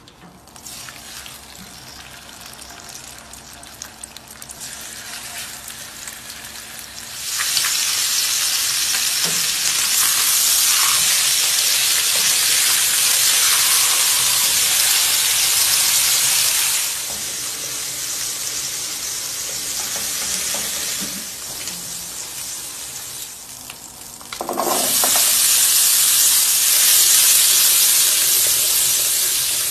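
Food frying in hot butter in a pan: a quieter sizzle at first, then loud sizzling from about seven seconds in as chicken pieces sear, easing a little midway, and a fresh loud burst of sizzling near the end as small whole shallots fry.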